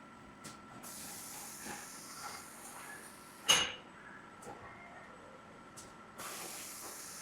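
Industrial robot cell working through its cycle: a steady hiss of air runs for a few seconds, stops with one sharp metallic clink, then starts again. The same clink repeats on each cycle, about every five seconds.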